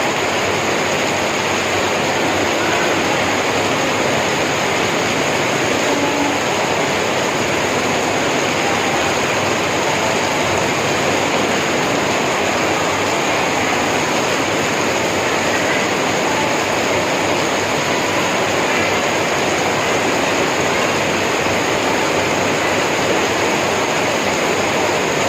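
Heavy rain pouring down steadily, an even, dense hiss of falling water.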